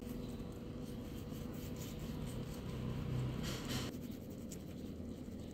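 Kitchen knife sawing through a seaweed-wrapped rice roll on a cutting board, with the dry seaweed sheet crackling and scratching under the blade. The loudest cut comes about three and a half seconds in.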